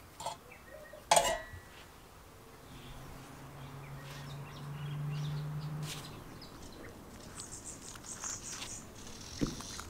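A sharp knock about a second in from the lantern's metal parts being handled, then a low steady hum that swells and fades. Small birds chirp near the end.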